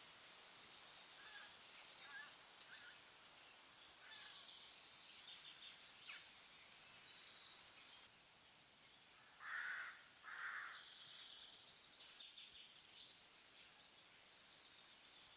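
Faint forest ambience recording: scattered bird chirps and trills over a soft steady hiss, with two louder, lower calls in quick succession about two-thirds of the way through.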